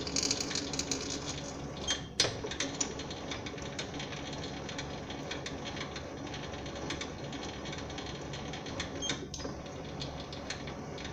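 Sieg SC4 bench lathe running while a threading tool cuts an M10 x 1.5 thread in a white POM plastic rod. There is a steady motor and gear hum with many small irregular clicks, and a sharper click about two seconds in and again about nine seconds in.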